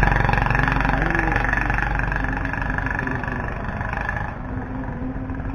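A motor vehicle engine running steadily, its higher whine fading out about four seconds in as the overall sound slowly gets quieter.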